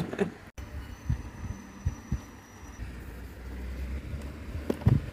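Handling noise as fabric is lined up under a mini sewing machine's presser foot: a low rumble with a few irregular soft knocks, the loudest just before the end.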